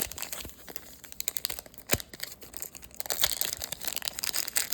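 Crinkling and rustling of plastic trading-card wrappers and sleeves being handled, with a sharp click about two seconds in. The crinkling gets louder from about three seconds in.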